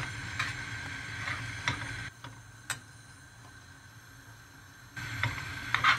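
A metal spoon stirring thick oatmeal in a stainless steel pot, with a few light clicks and taps of metal on metal and a low steady hum. It goes quieter in the middle and picks up again near the end.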